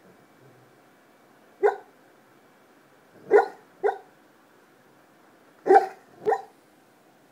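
Black Labrador barking in its sleep: five short barks, a single one followed by two quick pairs.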